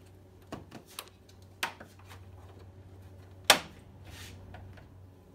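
Plastic push-pin rivets along the top of a Jeep Wrangler JK's factory grille being prised up and popped out with a small screwdriver: a few sharp plastic clicks, the loudest about three and a half seconds in.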